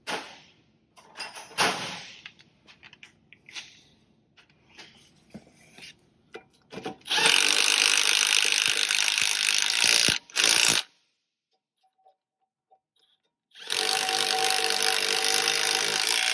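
Cordless impact wrench spinning freely as it runs the front strut's nuts and bolts down, with no hammering: one run of about three seconds about seven seconds in, a short burst after it, and a second run of about three seconds near the end. Before the first run come a few light metallic clinks.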